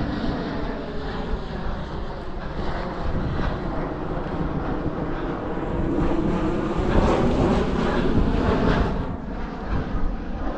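An airplane passing overhead: a steady engine rumble that swells to its loudest about six to nine seconds in, then eases.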